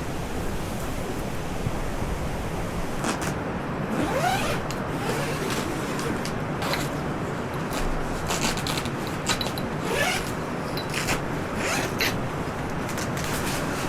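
A series of short scraping or rubbing strokes, a few rising quickly in pitch, over a steady rushing noise.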